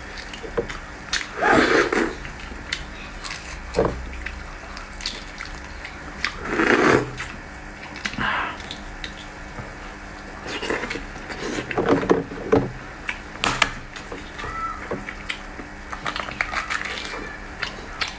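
A person eating boiled fertilized eggs at close range: irregular chewing and mouth sounds, with scattered small clicks and a handful of louder, short noisy bursts.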